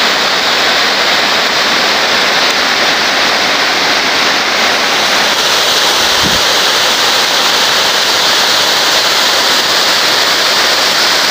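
Mountain waterfall rushing: a loud, steady roar of falling water, with a brief low bump about six seconds in.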